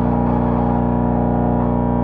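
Music: a steady, distorted drone holding one chord with many overtones, with no beat and no change in loudness.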